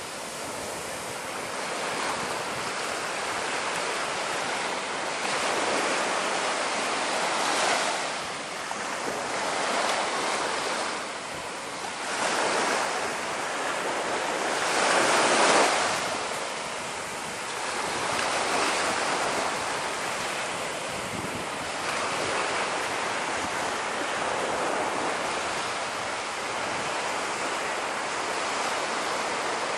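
Sea waves washing onto a beach in a steady hiss that swells and ebbs every few seconds, the biggest surge about halfway through, with wind buffeting the microphone.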